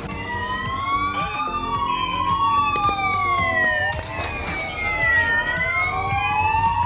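Several police sirens wailing at once, their rising and falling tones overlapping out of step with one another, over a low rumble of traffic.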